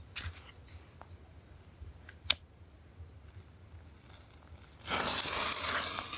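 Crickets and other insects chirring steadily in a high, pulsing chorus. About two seconds in there is a single sharp click, and near the end a burst of hissing noise lasts about a second.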